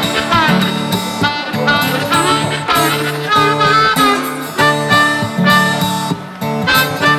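Background music: a blues-style instrumental break of harmonica over strummed acoustic guitar.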